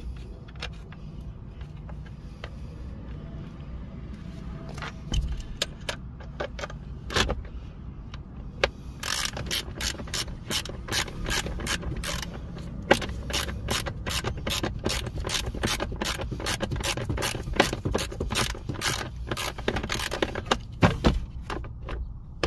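Hand socket ratchet clicking as bolts are run in to secure a blower motor, with a few scattered knocks and clicks at first. About nine seconds in it settles into a steady run of ratcheting clicks, then stops shortly before the end.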